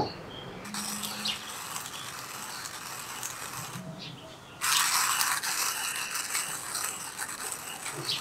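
A rasping, rattling mechanical sound in two stretches of about three seconds each, with a short pause between; the second stretch is louder.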